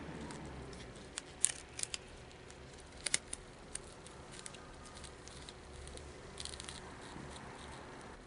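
Small handling sounds of fingers working a balloon's plastic one-touch valve stopper and its string: a few faint sharp clicks and ticks in two clusters, about a second in and about three seconds in, then a brief rustle a little after six seconds.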